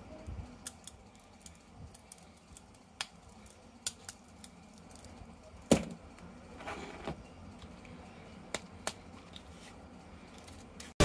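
Scattered light clicks and taps of hands handling small hard objects, with one louder knock about six seconds in and a little rustling after it.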